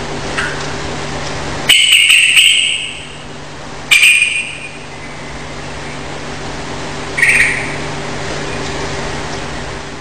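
Yellow-vented bulbul (trucukan) song: three loud, short bursts, the first about two seconds in and lasting about a second, one near four seconds, and a shorter one near seven seconds. A steady hiss with a low hum runs under them.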